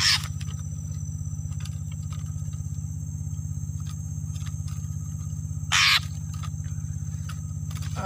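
A small engine idling steadily with a fast, even low throb. Two brief rustling scrapes come at the very start and about six seconds in, over faint insect buzzing.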